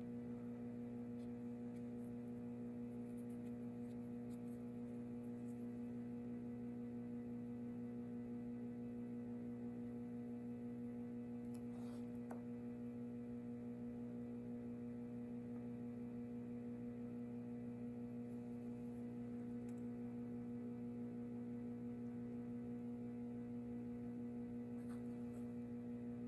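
Steady electrical mains hum, with a couple of faint ticks.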